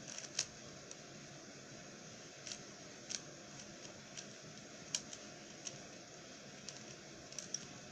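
Plastic Rubik's cube being turned by hand: faint, irregular clicks as its layers snap round, roughly one or two a second.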